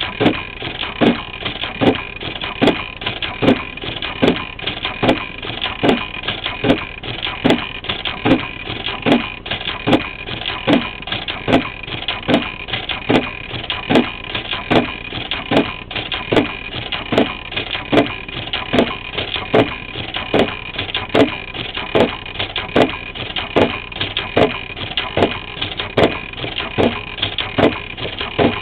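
Brother BAS-311/326G industrial pattern sewing machine running as it stitches through 12 mm rope: a steady mechanical hum with a regular knock about one and a half times a second.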